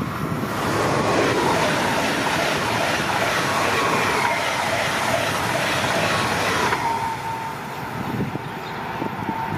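Stadler FLIRT 3 electric multiple unit passing at speed: the rush of wheels on rails and air swells quickly and drops away about seven seconds in. A high whine falls slightly in pitch as the train goes by and lingers as it moves off.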